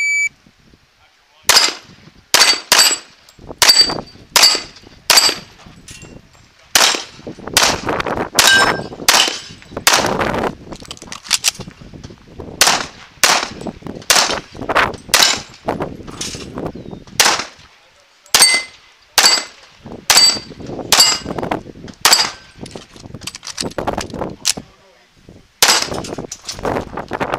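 An electronic shot-timer beep, then a rapid string of pistol shots fired in quick bursts. Many shots are followed by the short metallic ring of a steel target being hit.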